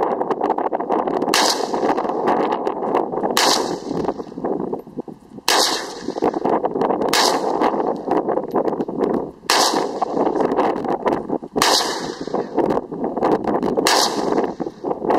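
SKS semi-automatic rifle (7.62×39 mm) fired seven times, slow aimed single shots about two seconds apart, each a sharp crack with a short echoing tail, over a steady rushing background noise.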